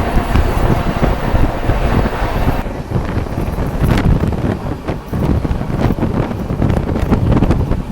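Wind buffeting the microphone of a moving passenger train, over the low rumble of the train running.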